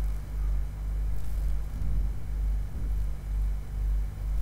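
Steady low hum and rumble of background noise, with no speech.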